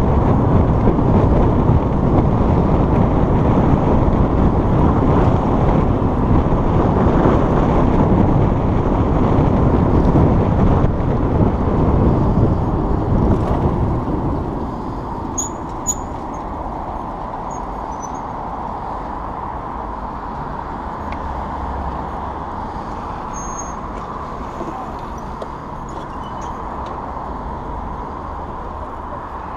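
Road traffic noise: vehicles running past, louder for the first half, then settling to a quieter steady hum, with a few faint high squeaks in the second half.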